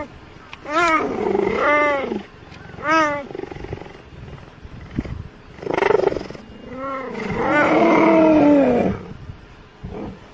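Cheetahs calling with cat-like meows: a string of short calls, each rising then falling in pitch, with longer, lower drawn-out meows near the end.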